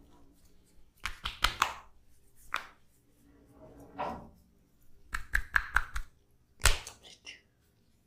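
Sharp hand slaps and taps of an Indian head and neck massage, coming in quick groups of several strokes with single slaps between; the loudest single slap comes near the end.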